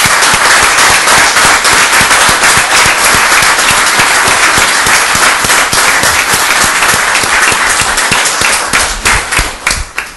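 Audience applauding, a dense, loud round of clapping that thins out near the end.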